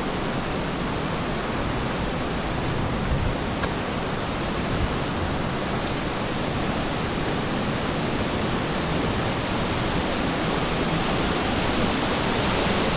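Steady rush of water from a cave stream and waterfall, an even hiss without let-up. A few light knocks sound about three to five seconds in.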